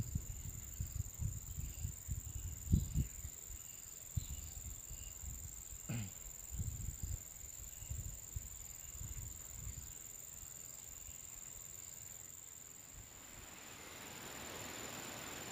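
Steady high-pitched insect drone over soft low knocks and rustles of hands handling fishing gear close by; a rustling hiss builds near the end.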